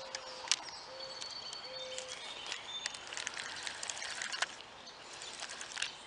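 Scattered light clicks and ticks of a spinning reel and fishing line being handled close by, over faint bird calls.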